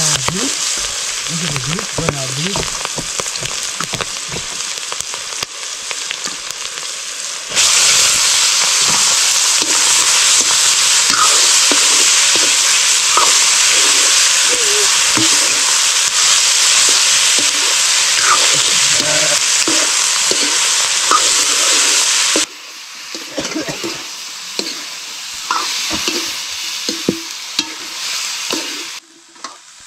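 Buffalo meat frying in hot oil in a cooking pot, a steady sizzle. The sizzle turns suddenly louder about seven seconds in and drops back sharply about a third of the way from the end.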